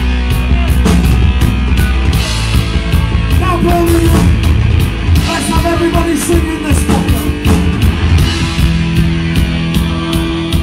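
Live punk rock band playing loud: distorted electric guitars, bass and a driving drum kit in an instrumental passage.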